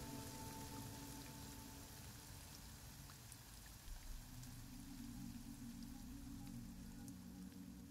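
Faint ambient rain, a soft patter of drops, over a soft low drone whose pitch shifts about halfway through.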